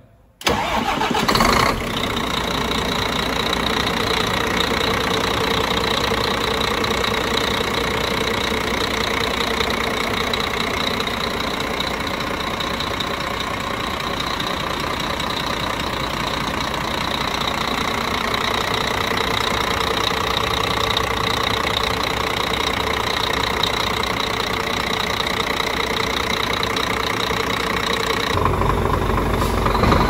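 Scania DC13 13-litre inline-six diesel cranking and catching about half a second in, then running steadily at idle. This is its first start after a valve adjustment, oil change and fuel bleed.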